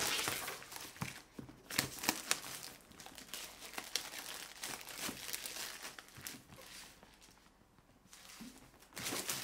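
Packaging being torn open and crinkled by hand while a boxed drone is unpacked: irregular rustling, crackling and tearing of paper and plastic wrap in quick strokes. It eases off about two thirds of the way through, then picks up again near the end.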